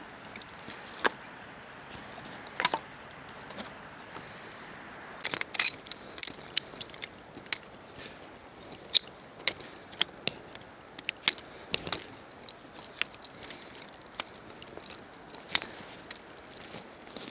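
Camping gear being unpacked and handled: irregular light clinks, knocks and rustles, the sharpest about five and a half and twelve seconds in, over a steady background hiss.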